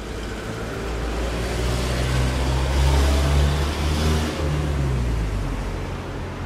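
A vehicle running past, its motor tone and rumble building to a peak around three seconds in and then fading.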